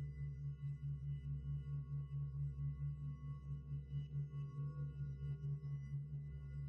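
Quiet background score: a low sustained drone that pulses about three times a second, with faint steady high tones above it.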